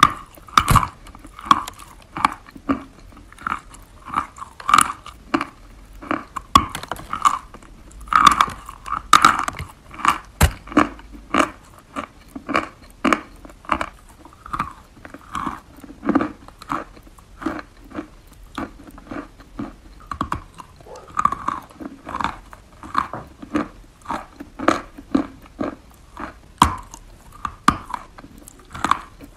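Chalk being bitten and chewed close to the microphone: a steady run of dry crunches, about one or two a second, with sharper snaps where fresh bites break off the block.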